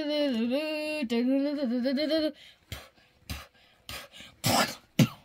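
A child's voice making a sound effect: a long, wavering sung note lasting about two seconds, briefly broken about a second in, then a few short knocks and hissing noises, the loudest near the end.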